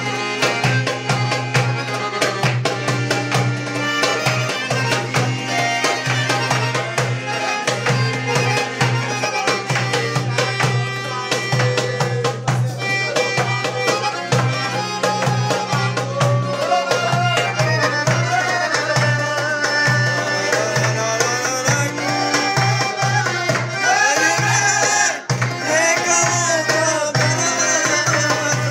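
Balkan folk band music with a fast, steady drum beat over bass. From about halfway through, a wavering, ornamented melody line comes in on top.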